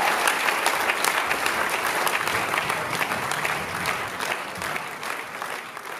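Audience applauding, with dense, rapid clapping that fades out near the end.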